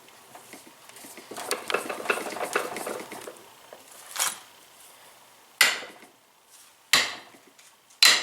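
Metal parts of a coilover shock clattering and scraping for about two seconds, then a clink. Then three sharp, ringing metal hammer strikes, evenly spaced about a second and a quarter apart, as the shock is reassembled.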